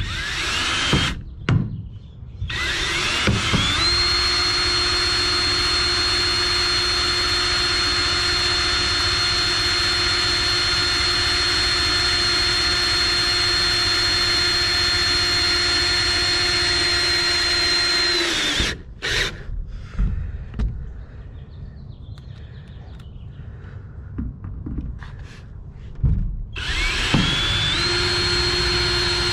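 Cordless drill-driver running at a steady speed as it drives screws through a fitting into an Airstream trailer's aluminium skin: a short start in the first second, one long run of about fifteen seconds, then a fresh start near the end.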